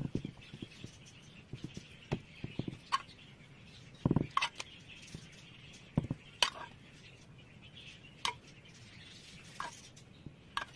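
Metal spoon clinking and scraping as cooked mince filling is scooped from a pan and spread onto roasted eggplant halves in a glass baking dish: scattered light clicks with a few soft knocks.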